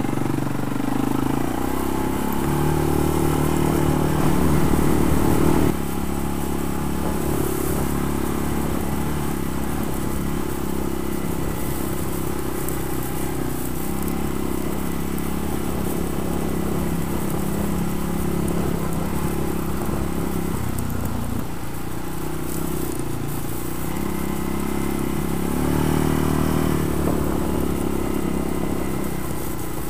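ATV engine running under way, its pitch stepping up and down with the throttle. It is loudest a few seconds in and drops off sharply about six seconds in.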